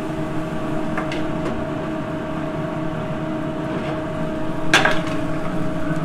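Metal skillet clanking once, loudly, against the metal of a commercial kitchen's cheese melter and range, with a couple of lighter clinks earlier. A steady kitchen equipment hum runs throughout.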